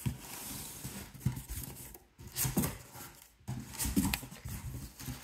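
A large cardboard shipping box being handled and moved, with irregular scraping and rustling of cardboard and a few dull knocks.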